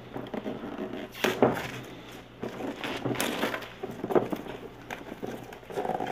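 Plastic shrink wrap being peeled and pulled off a cardboard board-game box, crinkling and crackling in irregular rustles, with a few sharper crackles and hands sliding and knocking on the box.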